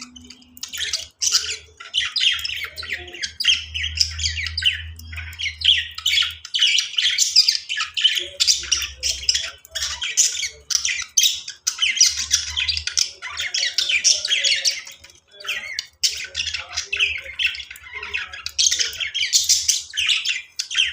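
Several pet budgies chattering and chirping without pause, with many quick calls overlapping.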